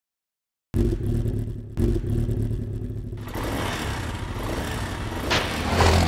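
Motorcycle engine sound effect that starts suddenly about a second in with two quick revs, then keeps running and grows noisier about halfway through as the bike pulls away.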